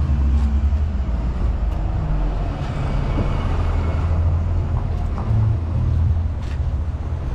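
City street traffic: motor vehicles running with a steady low rumble, with a louder passing swell about two to four seconds in.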